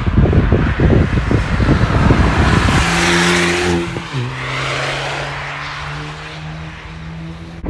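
Camouflaged hatchback test car driving past at speed: its engine note and tyre noise swell to a peak as it goes by, then the engine steps down sharply in pitch about four seconds in and holds steady while fading away. Wind buffets the microphone for the first few seconds.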